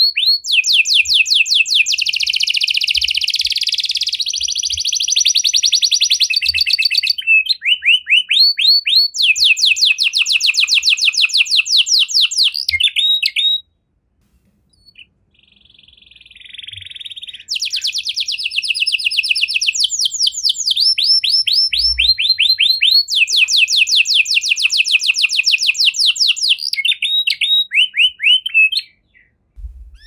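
Red-factor domestic canary singing: fast trills of repeated downward-sweeping notes and a rolling, buzzy passage. The song breaks off for about two seconds near the middle, comes back faint and then loud, and stops shortly before the end.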